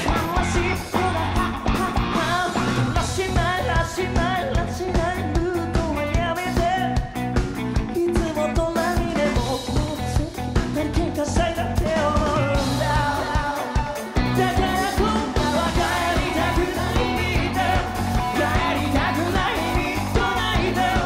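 Rock band playing live: a male lead vocal sung over electric bass guitar and a drum kit with a steady beat.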